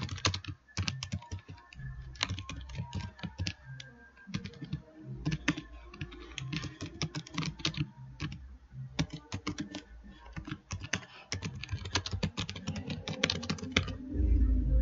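Computer keyboard typing: irregular runs of key clicks with short pauses between them. A low thump near the end is the loudest sound.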